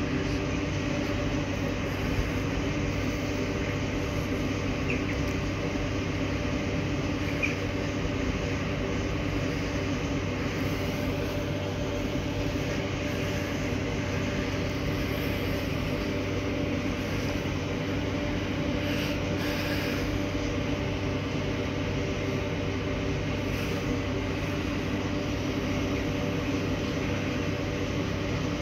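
Romanian CFR class 41 electric locomotive standing at a platform, its on-board equipment humming steadily with several constant tones and no change in pitch, the sound of the locomotive powered up but not yet moving.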